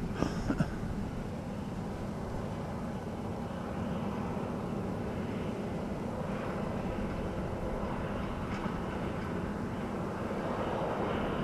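Farm harvesting machinery working the cornfields, heard as a steady engine drone, with a couple of short clicks about half a second in.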